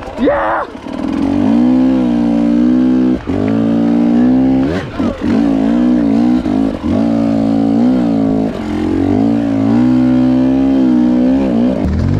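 Enduro dirt bike engine under throttle, held at steady revs for one to two seconds at a time, with the throttle briefly chopped between bursts about five times.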